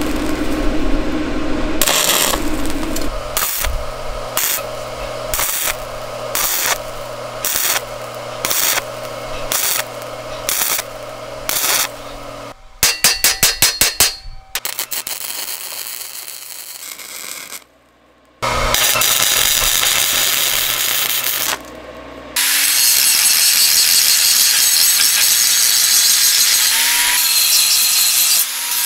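Steel square-tube frame being fabricated: welding crackle, then a run of short, evenly spaced bursts, a quick series of about six hammer blows on the steel frame about halfway through, and an angle grinder running steadily on the frame through the last third.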